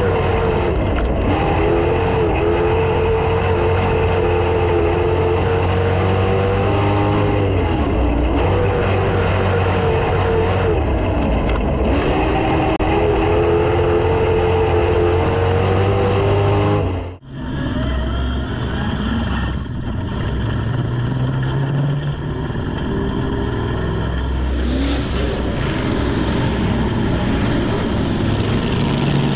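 Dirt-track street stock race car's engine running hard under racing load, its pitch dipping and climbing again several times as the car lifts and accelerates around the track. About 17 seconds in it cuts off abruptly to a second recording of the racing, where the engine is rougher and less distinct.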